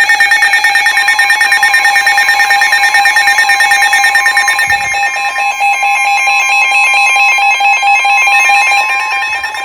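Weather radio receiver sounding its alert for a severe thunderstorm warning: a loud, rapidly pulsing electronic alarm tone, with a second steady warning tone joining about a second in.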